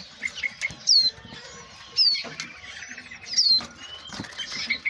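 Many caged songbirds chirping, with a sharp, high, downward-sliding call three times, among lighter chirps and scattered clicks and rustles from the cages.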